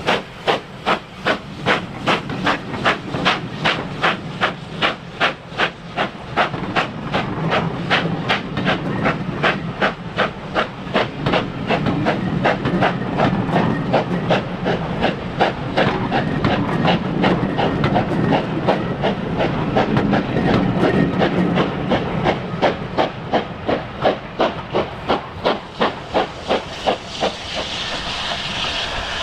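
GWR Castle-class steam locomotive 5029 'Nunney Castle' working hard under steam, its four-cylinder exhaust giving a fast, even rhythm of chuffs. Near the end the beats weaken and a steam hiss comes up.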